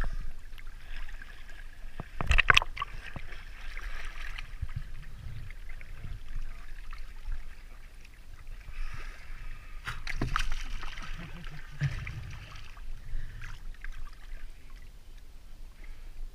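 Seawater sloshing and splashing right against a camera held at the surface beside a swimmer, with a couple of sharp knocks, about two seconds in and again near ten seconds.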